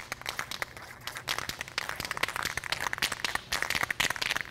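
Aerosol spray paint can shaken hard, its mixing ball rattling in fast clicks that get louder about a second in.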